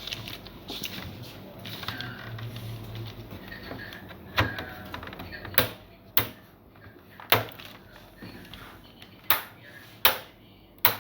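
Irregular sharp clicks and taps, about seven of them spread over the second half, from hard computer parts and tools being handled while working on an all-in-one PC.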